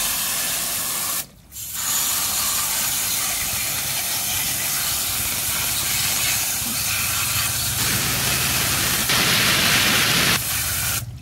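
Hose spray nozzle hissing as its water jet washes mud off plastic toy cars. It stops briefly about a second in, sprays louder for a second or so near the end, then cuts off.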